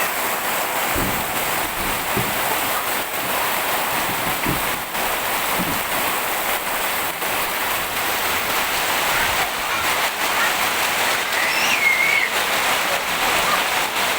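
Heavy rain pouring down in a steady downpour, with a child's brief high call near the end.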